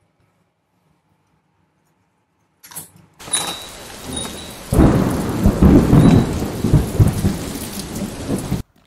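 Rain hissing steadily, with wind rumbling hard on the microphone, starting about three seconds in. The rumbling grows heavier about five seconds in, then everything cuts off suddenly near the end.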